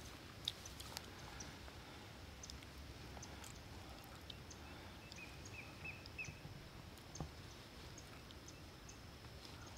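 Faint open-air ambience: a low, even rumble of wind, a few scattered clicks, and a small bird chirping a handful of times in quick succession about five seconds in.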